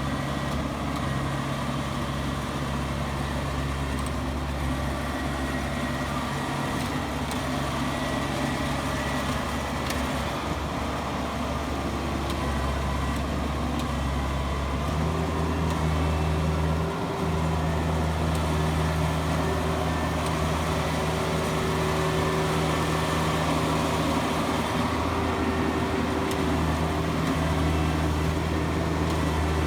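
Rice combine harvester's engine running steadily under load, its note stepping up to a slightly higher steady pitch about halfway through.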